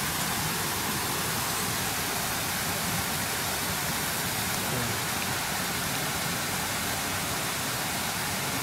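River water running: a steady, even rushing hiss with no breaks.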